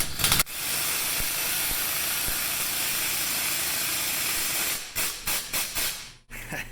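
Impact wrench driving a hub removal bolt against the hub to press a bolt-in wheel hub out of its knuckle. It runs in one long, steady burst for about four seconds, then fires several short bursts near the end.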